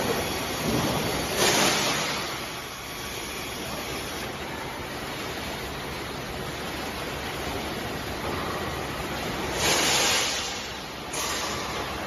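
Robotic welding cell running: a steady hiss, with two louder bursts of hissing, about a second and a half in and again near the end.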